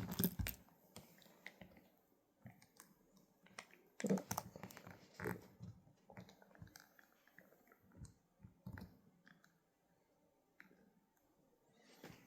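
Handling of a plastic action figure and its parts: scattered light plastic clicks and brief rustles, with small clusters near the start, about four and five seconds in, and around eight seconds.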